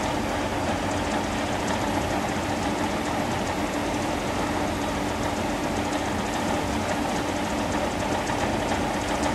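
Farm machinery running steadily: a constant mechanical drone with one steady hum through it and no change in speed.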